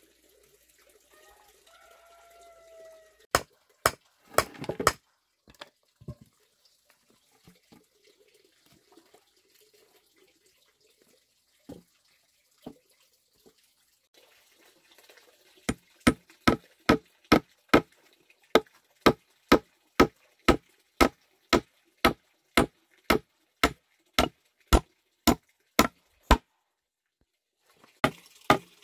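A hammer striking a wooden plank bench: a few scattered blows, then a steady run of sharp knocks at about two a second for some ten seconds.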